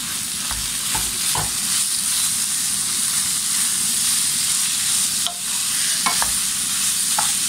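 Minced chicken sizzling steadily in hot oil with onions and bell peppers in a non-stick wok, stirred with a wooden spatula that gives a few soft knocks and scrapes against the pan.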